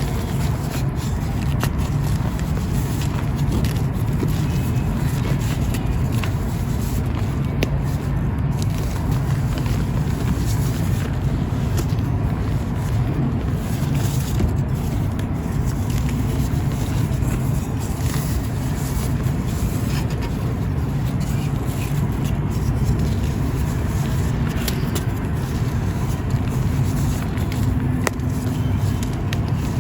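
Dry marble powder chunks crumbling and crunching continuously, with a few sharp crackles, over a constant low rumble.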